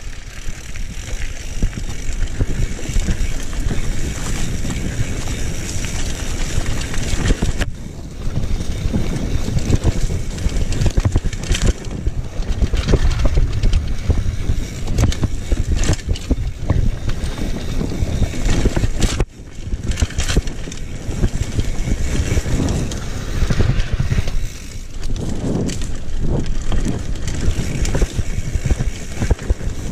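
Wind buffeting an action camera's microphone while a mountain bike rolls fast down a dirt trail, with rumble and rattle from the tyres and bike over the rough ground. The noise drops away briefly twice.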